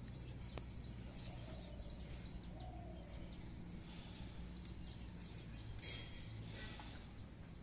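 A small bird chirping a quick series of short high notes, about four a second, over a steady low background hum. A few faint clicks near the end come from hands tearing and handling the mushrooms.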